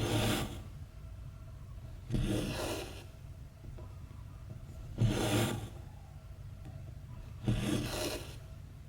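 Embroidery thread pulled through cross stitch fabric, a short rubbing swish four times at a steady pace of about one stitch every two and a half seconds, over a faint steady low hum.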